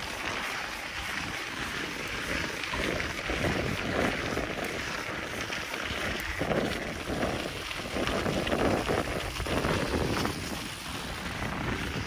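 Mountain bike riding a dirt trail: wind rushing over the microphone along with tyre noise, an uneven noise that swells and eases every second or so.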